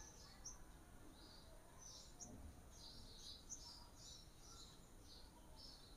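Faint birds chirping in the background: short, high chirps following one another several times a second, over near silence.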